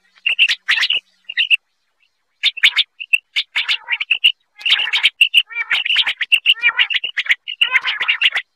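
Common quail calling: quick clusters of high chirping notes, repeated over and over, with a short pause about two seconds in.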